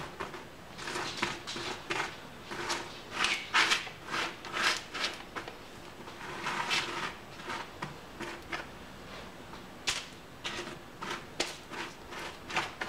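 A spatula spreading a candy-coated mix of pretzel sticks and cereal over a parchment-lined metal baking sheet: irregular scraping and crinkling strokes, one or two a second.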